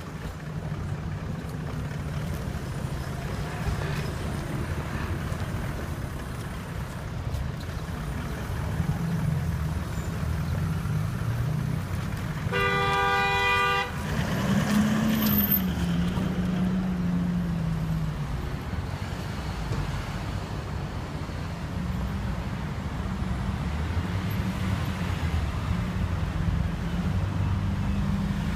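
Car engine and road noise running throughout. About halfway through, a car horn honks once for about a second and a half, and just after it an engine note rises and falls.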